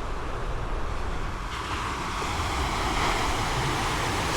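Ocean surf washing on a beach, a steady rushing that swells a little about a second and a half in, with wind rumbling on the microphone.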